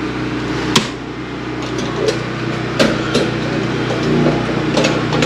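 A main circuit breaker in the breaker panel snaps on with one sharp click about a second in, back-feeding the house. Under it runs the steady hum of a Generac 5939 5500-watt gasoline generator, and a few lighter knocks follow.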